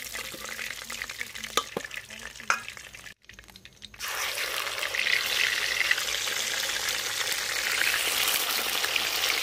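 Tuna steaks coated in salt and turmeric frying in hot mustard oil in an iron karahi. First comes a moderate sizzle with a few light knocks. After a cut about four seconds in, there is a louder, steady sizzle as fresh pieces go into the oil.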